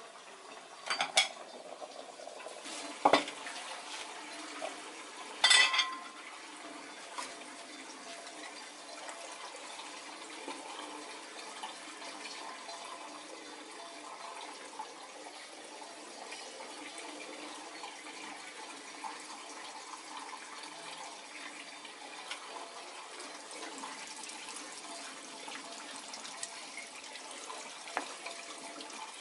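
Washing-up sounds: three sharp clinks of dishes in the first six seconds, the last one ringing briefly, then a steady wash of water with small faint knocks.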